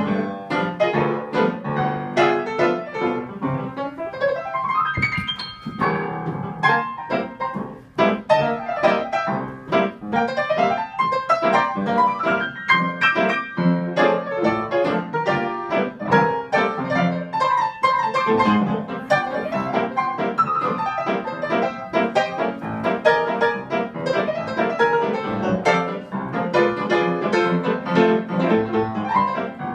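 Live piano music: a continuous, busy stream of notes and chords.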